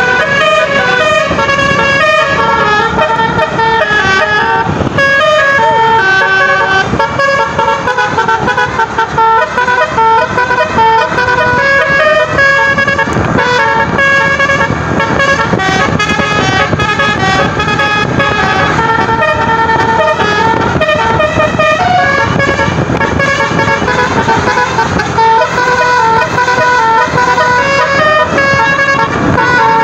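Bus 'telolet basuri' multi-tone horn playing a long, loud melody of quickly changing notes, with vehicle engine noise underneath.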